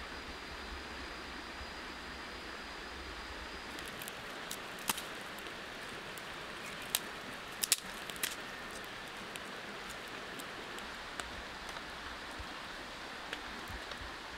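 Small fire of dry sticks crackling, with a handful of sharp pops between about five and eight seconds in and fainter ones later, over a steady hiss.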